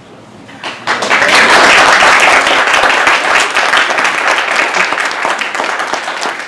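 Audience applauding: many hands clapping, starting about a second in and slowly tapering off near the end.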